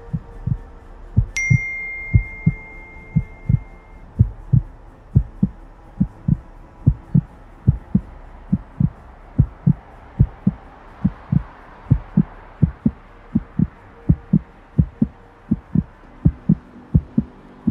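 Heartbeat sound effect: regular low thumps, about two a second, over a low drone. About a second in, a single high chime rings out and slowly fades.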